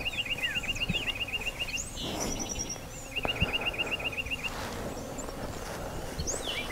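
Songbirds singing: a rapid trill of evenly spaced high notes, about a second and a half long, comes three times, with short higher trills and scattered falling whistles from other birds between them.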